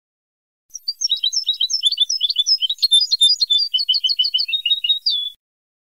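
A phrase of European goldfinch song from a Ceuta-style song-training tape: a quick run of high chirps and short trills starting about a second in and stopping abruptly near the end, with dead silence on either side where the recording was edited.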